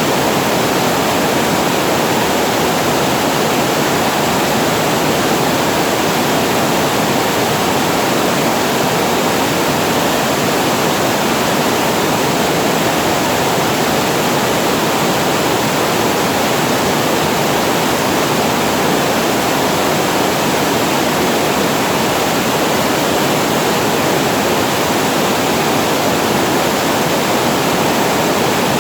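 Water pouring over a reservoir weir and falling below it: a loud, steady, unbroken rush of falling water that neither builds nor breaks.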